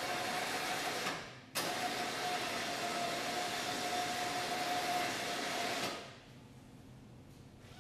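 Electric crane hoist motor on a cargo van running with a steady whine as it winds the cable. It winds down about a second in, starts again abruptly half a second later, and cuts off about six seconds in.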